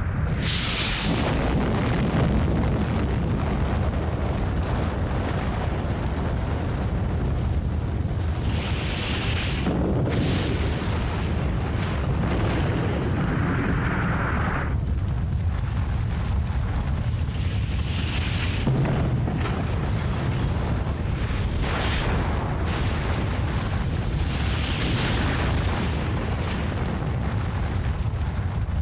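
Sustained deep rumble of a huge explosion, an atomic-blast style sound effect. It holds steady and loud, while a rushing hiss swells up and fades several times.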